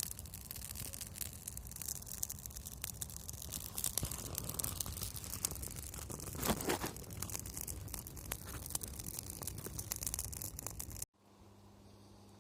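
Wood campfire crackling, a dense run of irregular pops and snaps. About eleven seconds in it cuts off abruptly to a faint low hum.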